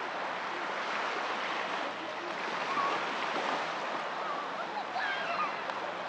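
Small waves of the Black Sea washing steadily onto a sandy beach, with short high voices or calls over the surf.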